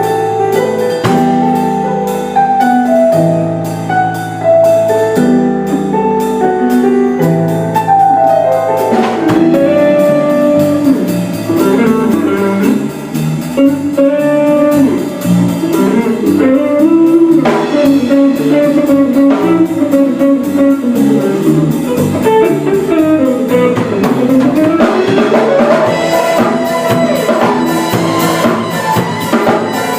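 Instrumental break of a band's rearranged pop song. Held chords over a bass line for the first several seconds, then a lead melody winding over guitar and drum kit.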